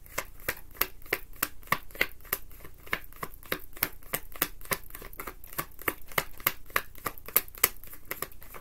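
Tarot deck being shuffled by hand: a steady run of light card clicks and slaps, about five or six a second.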